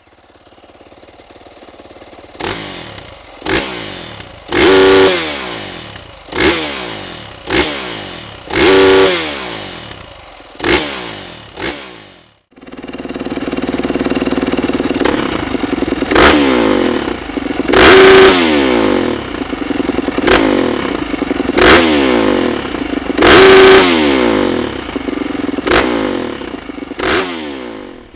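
Yamaha YZ450F's single-cylinder four-stroke engine idling and being blipped to high revs about eight times on the stock exhaust. After a sudden cut it idles louder on a Dominator aftermarket exhaust and is revved in about nine more quick blips.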